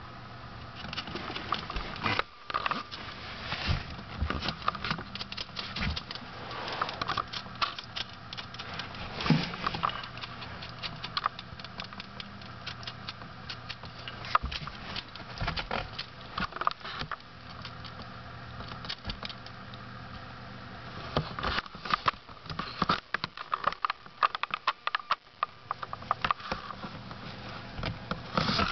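Syrian hamster moving about its cage: irregular small clicks and rustles from shredded paper bedding and from the water bottle's metal spout as it drinks, busiest at the start and again near the end.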